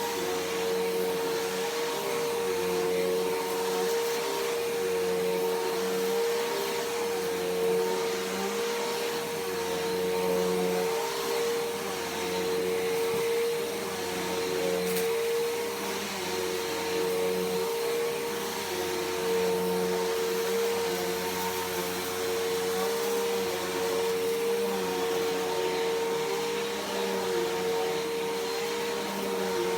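Bissell PowerForce Helix Turbo upright vacuum cleaner running steadily: a constant motor whine over a rush of air, with a lower hum that comes and goes.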